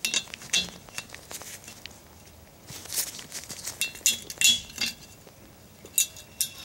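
Side cutters working at thin sheet-metal drum retainer washers on the studs of a drum brake, cutting them off: an irregular string of sharp metallic clicks and clinks, some with a brief ring, the loudest at the end.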